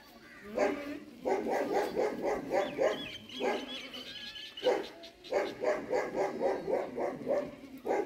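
Goats bleating: long quavering bleats made of rapid, even pulses, in two runs starting about a second in and again about five seconds in.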